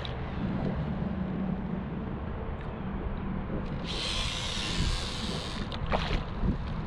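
Fishing reel whirring as line pays out with the baited rig. About four seconds in there is a short bright hiss lasting under two seconds, then a few light knocks.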